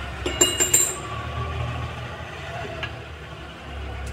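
A quick cluster of sharp metallic clinks with a brief ring, less than a second in, then a single softer click near three seconds: a metal key and the blade assembly of a mixer-grinder jar knocking together as the broken blade is worked loose and taken off.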